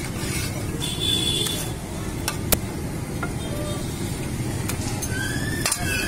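Steady street traffic rumble, with a few sharp clinks of a steel ladle scooping vegetable curry from a steel pot. A wavering high tone comes in near the end.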